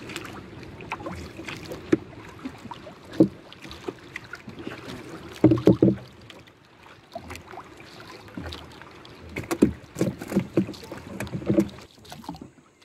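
Wooden paddle working a small outrigger canoe: irregular splashes of paddle strokes in the water and sharp knocks against the hull, coming in clusters over a steady wash of water.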